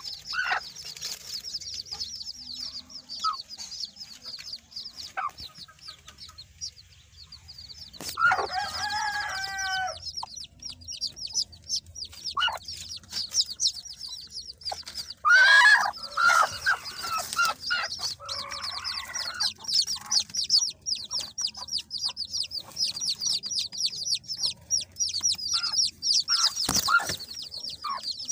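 Chicks peeping rapidly and continuously in a high pitch. Louder, lower calls from adult chickens come about eight seconds in and again around fifteen seconds in, the second the loudest.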